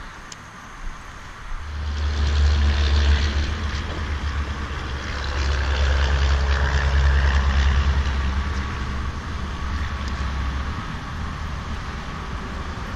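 A motor vehicle's engine rumbling nearby. It swells twice, about two and about six seconds in, then eases off.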